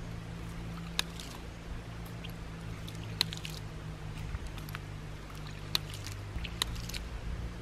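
Water running through a ram pump's drive pipe and waste valve as a steady low rush, with a few sharp, irregular clicks of the waste valve. The pump fails to settle into cycling: the non-return valve in the drive pipe keeps the pressure wave from building.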